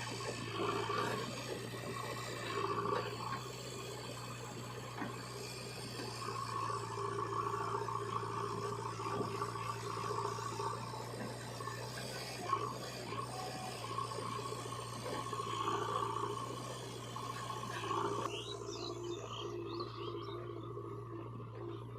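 Diesel engine of a JCB 3DX backhoe loader running steadily, swelling and easing every few seconds as the hydraulics load it while digging and loading mud.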